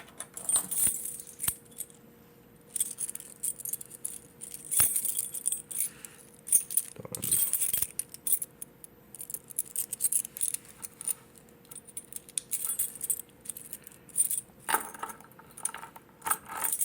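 A bunch of keys jangling and clinking in irregular bursts, as the keys on the ring are sorted through to find the one for the annunciator panel.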